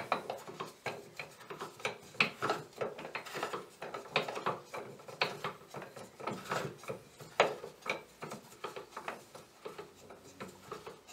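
Home-made hand-cranked rise-and-fall mechanism on a Startrite Bantam pillar drill being wound by hand, a jack raising and lowering the drill's head. It gives irregular clicks, knocks and rubbing, a few a second, as the crank turns.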